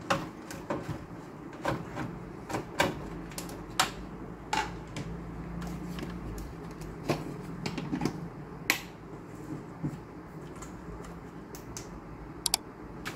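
Irregular small clicks and taps of a screwdriver and hands working on the metal chassis and plastic parts of an opened Dell desktop PC while a screw is removed, over a steady low hum.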